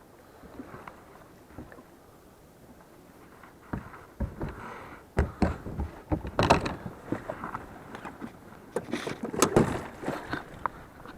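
Knocks and clatter on a small boat, an irregular run of sharp hollow thuds starting about four seconds in, loudest twice in the second half.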